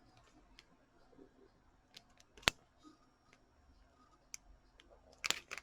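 Light clicks and taps from handling a coin and its packaging, with one sharp click about two and a half seconds in and a quick cluster of clicks near the end.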